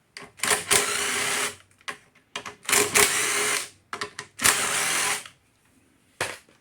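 Power drill/driver running in three short bursts of about a second each, backing out the three screws of a lawn mower's air filter cover. A single sharp click near the end.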